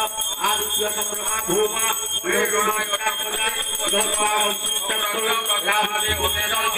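Small handheld puja bell ringing steadily without a break, over voices chanting or singing.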